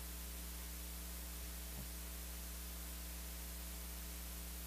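Steady electrical mains hum with a constant hiss from the sound system, unchanging throughout.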